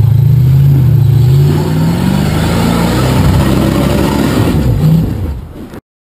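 Rock buggy's engine revving under load as it climbs a steep rock ledge, the pitch rising and falling with the throttle. The sound cuts off abruptly near the end.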